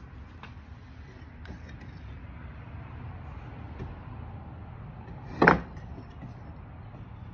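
A heavy block of Brazilian rosewood set down on the stack of blocks: a single loud, short wooden knock about five and a half seconds in, with a few faint clicks of blocks being handled earlier, over a steady low background rumble.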